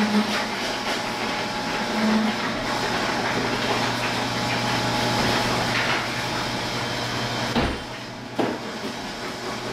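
A steady machine-like hum and hiss. It drops a little about eight seconds in, with two knocks around that moment.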